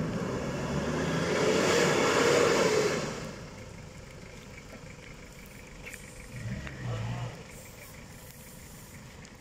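4x4 engine revving hard while driving through deep mud, its pitch rising and then falling, for about the first three seconds. It then drops to a quieter steady running, with a brief louder sound just before seven seconds.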